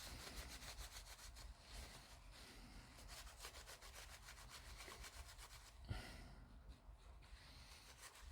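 Paper towel being rubbed quickly back and forth over a painted plastic model part, wiping off excess black paint to tone it down. Faint, with a run of fast, even strokes, a small knock about six seconds in, then slower, softer rubbing.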